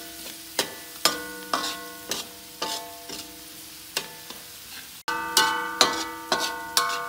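Metal spatula scraping and knocking against a thin metal wok, about two strokes a second, the wok ringing briefly after each. Food sizzles in oil underneath.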